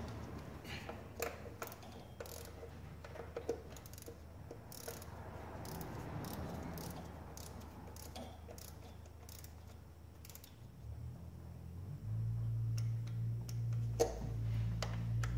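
Hand ratchet and wrench clicking in short, irregular runs as engine bolts are tightened in a crisscross pattern to seat a gasket evenly. Low background music comes in near the end.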